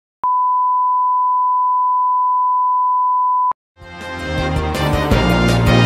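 A single steady, pure test-tone beep held for about three seconds that starts and stops abruptly, then, after a brief gap, music for the logo ident swells in near the end.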